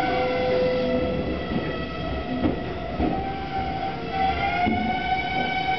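Tobu 200 series electric train heard from its vestibule as it slows into a station. Its traction motors, reused from the 1720 series DRC, and their gearing give off a steady whine of several tones over rumbling wheel and rail noise. About four seconds in, a higher set of tones glides upward.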